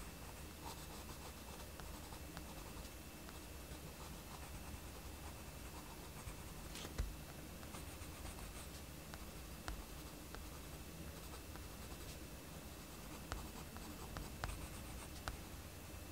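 Mechanical pencil scratching faintly on sketchbook paper in many short strokes, with a few sharper taps of the tip on the page, the loudest about seven seconds in.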